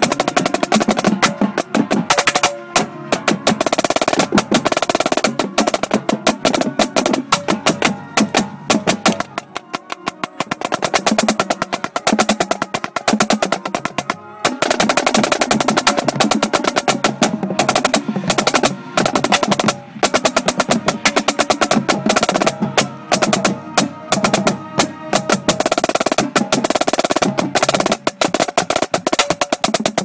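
Marching snare drum played right at the drum: fast sticking and rolls, with a short lull about ten seconds in. The marching band's horns play along behind it.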